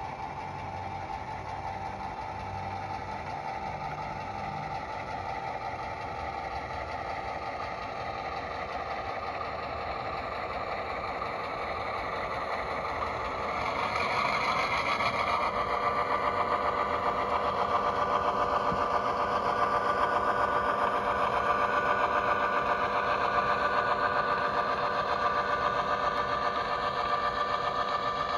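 HO scale model GP7's Soundtraxx Tsunami 2 sound decoder playing a diesel locomotive engine running, heard through the model's small speaker, with a few steady whining tones in it. It grows louder about halfway through as the locomotive draws near.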